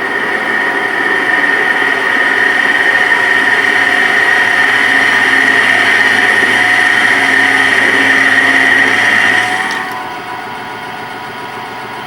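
CNC lathe running a finishing pass: a steady machining sound with a strong high whine, which cuts off sharply about ten seconds in, leaving the lathe running more quietly.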